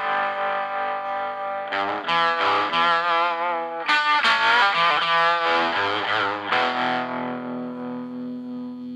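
Live blues on a distorted electric guitar and a harmonica played into a hand-cupped vocal microphone, in phrases of bending, wavering notes. A long steady note is held through the last couple of seconds.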